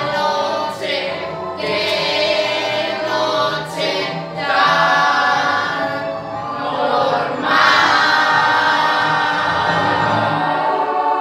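Mixed young voices singing a musical-theatre ensemble number in chorus, on long held notes. The last chord is the loudest and is held for about the final three and a half seconds.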